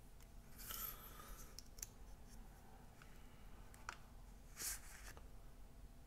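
Faint scrapes and rustles of a cardboard card holder being handled, with a few light clicks. A short scrape comes about three-quarters of the way through as the metal card is drawn out of its cardboard slot.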